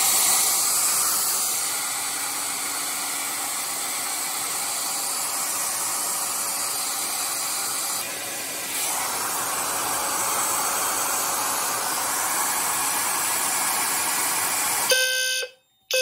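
Conair 1875 hair dryer blowing steadily onto a rate-of-rise heat detector to heat it into alarm. Near the end, fire alarm sounders start beeping in short repeated pulses.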